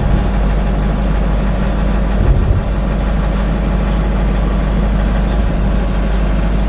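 Nissan Navara pickup's engine idling steadily as the truck creeps backward in reverse, heard from inside the cabin. There is a brief low thump about two seconds in.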